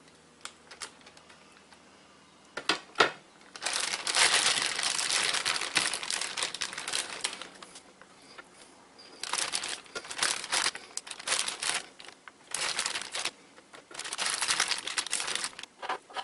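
Plastic marinade bag crinkling in four bursts as pigeon strips are pulled out of it and laid on a dehydrator's plastic tray. A few sharp clicks come just before the first burst.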